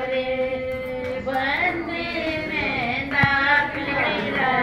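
Music with a woman singing, holding long notes that bend and slide between pitches.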